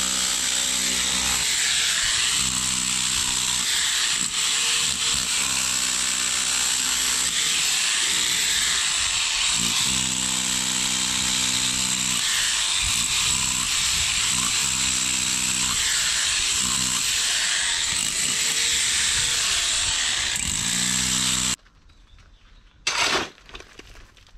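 Handheld electric power tool running hard against an old concrete foundation, its motor pitch sagging and recovering over and over as it bites into the concrete. Near the end it cuts off suddenly, and a short crunch of concrete rubble follows.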